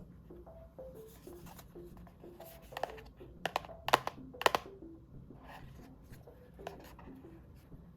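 Packaging being handled as a blind box is opened: a run of sharp clicks and crackles about three to five seconds in, with a few softer ones later. Soft background music of light plucked notes plays throughout.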